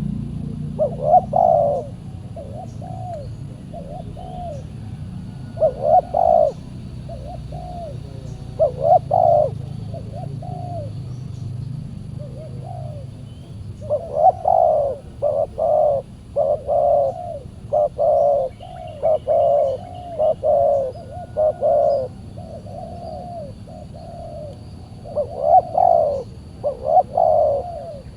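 Spotted doves cooing in repeated phrases of several notes: short bouts a few seconds apart at first, then almost nonstop through the middle and again near the end.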